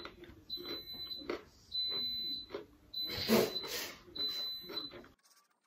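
Instant Pot pressure cooker beeping in the background: a high electronic beep about half a second long, repeating roughly once a second, over close chewing sounds. The sound cuts off abruptly near the end.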